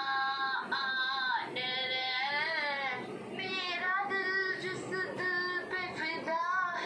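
A female voice singing a slow melody, holding long notes that waver and glide.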